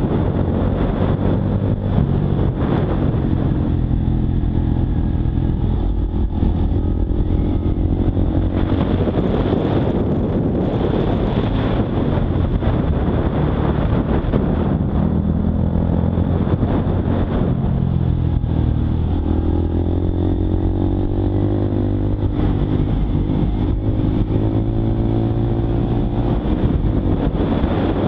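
Honda Monkey 125's single-cylinder four-stroke engine running under way, heard from on the bike. The engine note sinks about a quarter of the way in and climbs again about two-thirds of the way in as the throttle changes.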